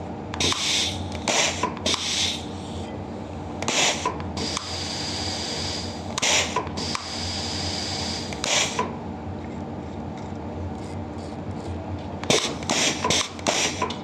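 Compressed air hissing out of a manual 5/2 rotary switch valve's exhaust flow control units in repeated bursts as the knob is turned back and forth, driving a double-acting pneumatic cylinder in and out. One longer hiss comes about five seconds in and a run of quick short bursts near the end, over a low steady hum.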